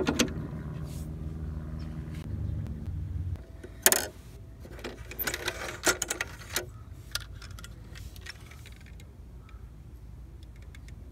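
Small die-cast toy vehicles clicking and clinking as they are handled and set down on a plastic play set. A steady low hum underneath stops about three seconds in.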